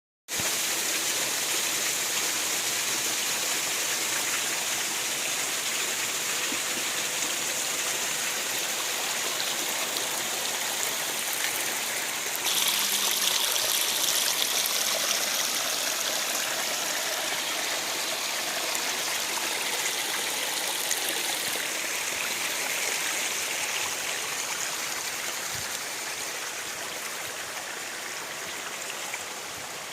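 Waterfall water rushing in a steady hiss, louder for several seconds from about twelve seconds in and easing off slightly near the end.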